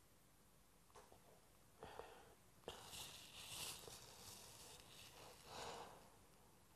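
Faint sniffling and breathing of a woman crying: several soft breaths and sniffs between about two and six seconds in.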